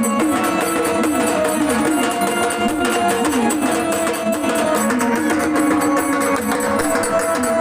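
Instrumental passage of Marathi devotional folk music in gondhal style: a plucked-string melody with a steady percussion beat.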